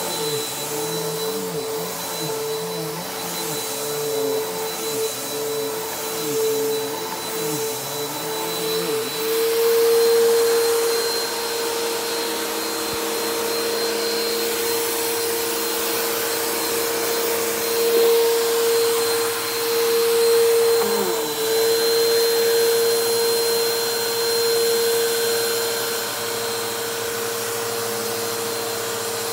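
Bissell PowerForce Helix upright vacuum cleaner running steadily with a motor hum and high whine; its pitch wavers over the first several seconds and dips briefly about two-thirds of the way through.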